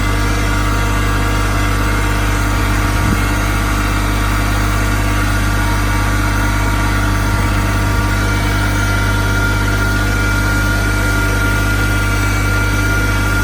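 Tractor engine running steadily at an even pitch and load, a low, constant drone.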